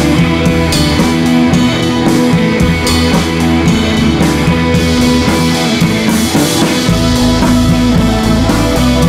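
Rock music with guitar and drums.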